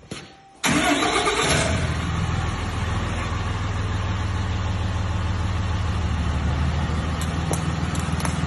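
Ram 3500 pickup's engine starting about half a second in, a sudden loud burst as it catches, then settling into a steady idle.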